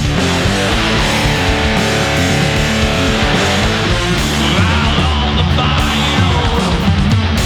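Stoner rock band playing: distorted electric guitars and bass holding heavy sustained chords over drums.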